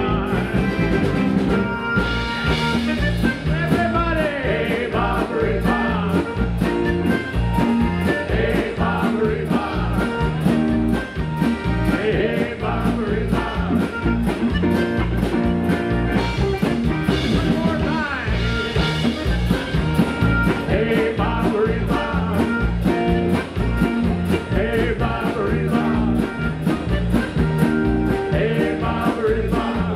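Live polka band playing: piano accordion leading over electric keyboard and drum kit, with a steady beat.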